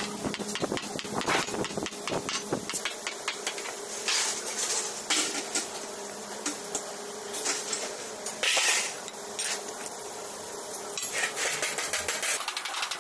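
Small hand hammer tapping the edge of a thin sheet-metal disc, shaping the lid of a stainless steel flour drum. Quick runs of light taps at the start and again near the end, with a few louder, separate strikes in between.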